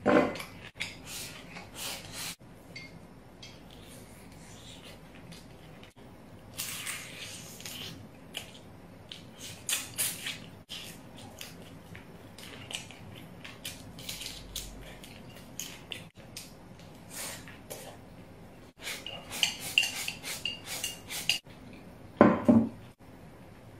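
Someone eating from a ceramic bowl: chopsticks clicking against the bowl again and again, between slurping and chewing noises, with a louder knock near the end.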